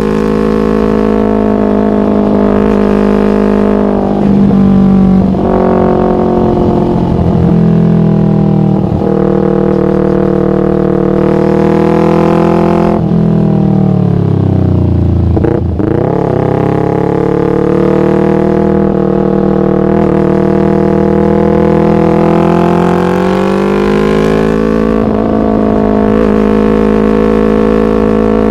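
Yamaha MT-25's parallel-twin engine through a Shadux aftermarket racing exhaust, running at steady, fairly high revs. About halfway through the revs drop away to a low point, then pick up sharply again, and they rise a little once more near the end.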